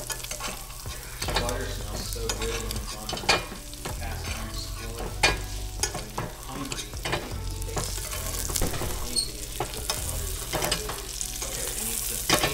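Speckled trout fillets frying in butter in a small cast-iron skillet, a steady sizzle, with a metal spoon clinking and scraping against the pan now and then as the butter is spooned over the fish.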